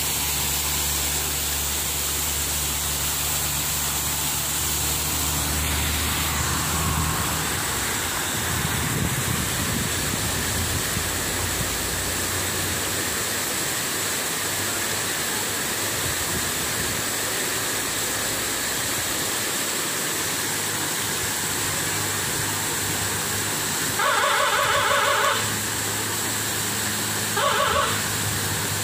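Waterfall cascading down a steep rock face, a steady, loud rush of water. A person's voice calls out briefly over it about 24 seconds in and once more near the end.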